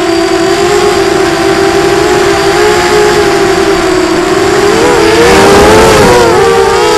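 Quadrysteria Mini Mamba V2 racing quadcopter's brushless motors and propellers whining, heard from on board, several close pitches together. About five seconds in the pitch wavers and climbs as the throttle changes through a banking turn.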